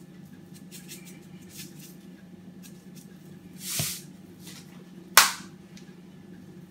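Spice being added to a bowl of stuffing: a brief soft shake of spice about four seconds in, then a single sharp tap of a spoon or container a little later, over a steady low hum.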